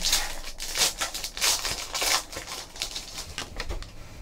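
Foil trading-card pack being torn open and its wrapper crinkled in the hands: a dense run of sharp rustling crackles that thins out near the end.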